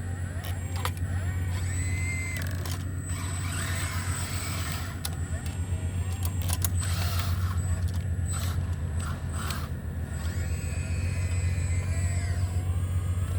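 Sumitomo SH120A3 hydraulic excavator's diesel engine running steadily under work. Brief higher whines come and go, and there are scattered metallic clicks and knocks from the machine as it moves.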